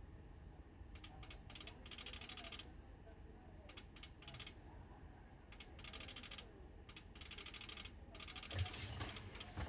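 Toptek PA-80V/U dual-band amplifier making its rapid clicking noise on the 70 cm band. The clicking comes in irregular bursts, from a fraction of a second to over a second long, with short pauses between them. A low thump sounds near the end.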